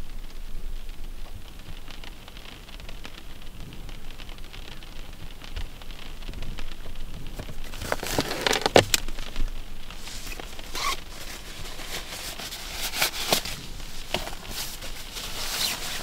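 Rain pattering steadily on a car's roof and windscreen, heard from inside the car. From about halfway, the crackling rustle of a nylon rain jacket being pulled out of a bag and put on.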